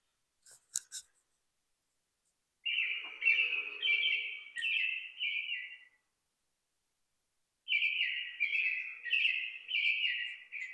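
A songbird singing two phrases, each a quick run of about six or seven clear notes, with a pause between them. A couple of short clicks come just before the first phrase.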